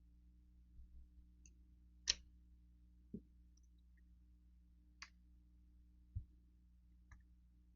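A few isolated light clicks and soft knocks as parts of a Winchester 1897 shotgun's action are handled during disassembly, over a faint steady hum.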